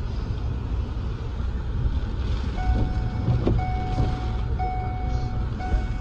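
Low, steady vehicle rumble. About two and a half seconds in, an electronic warning tone begins, sounding in long beeps about once a second.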